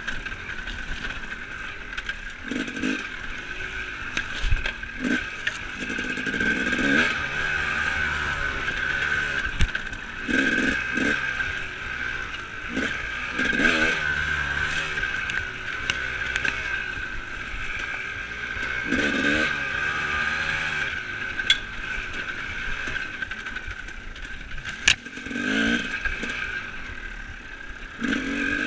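Enduro dirt bike's engine heard from the rider's seat, running with short bursts of throttle every second or two, with scraping and clatter from the bike over rough trail and a few sharp knocks.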